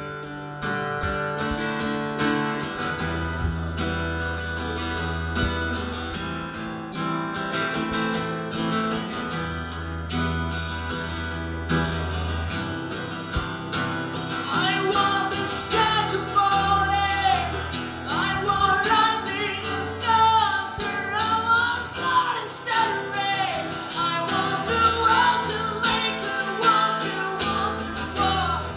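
Solo acoustic-electric guitar played through a PA, chords ringing steadily. About halfway through, a man's high voice comes in singing over it.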